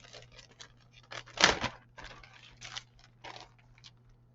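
Plastic model-kit sprues in their bags being handled: a run of irregular crinkles and clacks, the loudest a little over a second in.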